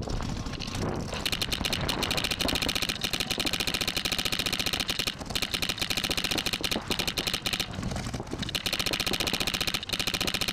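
Electronic paintball marker, an Empire Axe, firing long, very fast ramping strings of shots, starting about a second in and broken by short pauses about five and eight seconds in.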